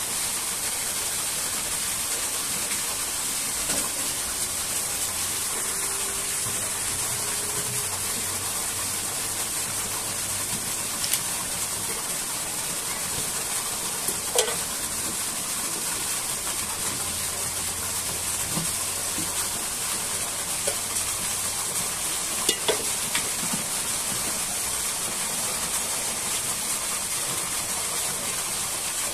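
Steady rush of a waterfall, an even hiss strongest high up, with a few scattered light knocks over it.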